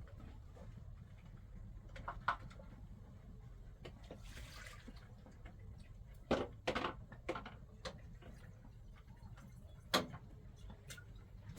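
Scattered knocks and clinks, loudest about six and ten seconds in, with a brief rush of pouring or splashing water a little past four seconds.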